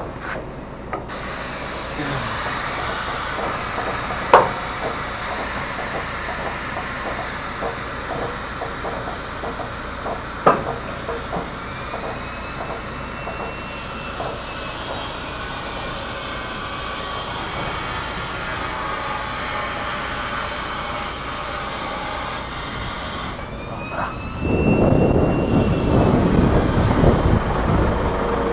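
Steady hiss of compressed air venting from the semi-trailer's air suspension as its height-control valve lowers the trailer. The hiss starts about a second in and stops abruptly a few seconds before the end, with a couple of sharp clicks along the way; a louder low rumble follows near the end.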